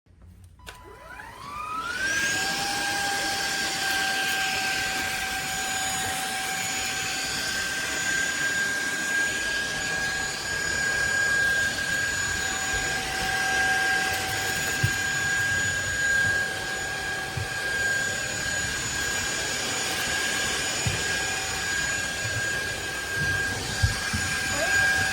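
Cordless stick vacuum cleaner motor spinning up over about two seconds, then running steadily with a high-pitched whine over the rush of suction air. A few faint knocks come as the head moves over the floor.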